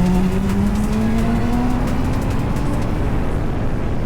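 Honda CBF600SA's inline-four engine pulling away, its pitch rising steadily as it accelerates through a gear. About three seconds in, the engine note fades under wind and road noise.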